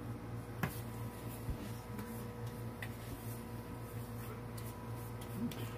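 Steady low hum of a small room, with a few faint ticks.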